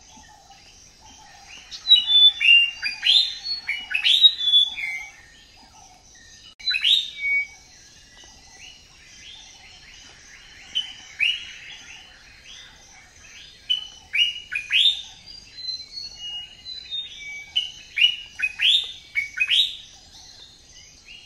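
Many small birds chirping and twittering, a dense mix of short, sharp calls that rise and fall, over a faint steady high-pitched hum.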